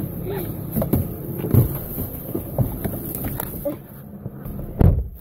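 Knocks and handling noise as someone climbs into a car, then a car door shutting with a heavy thump near the end.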